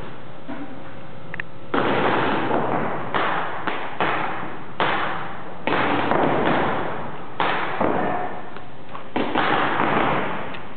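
Paintball markers firing in rapid strings inside a large indoor hall: about six bursts that start suddenly and trail off.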